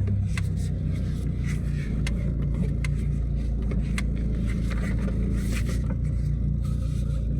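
Car engine idling steadily while the power steering is turned, the pump running quietly with no groan now that the leaking reservoir has been replaced and the steering fluid renewed. Scattered light clicks and scrapes sound over the hum.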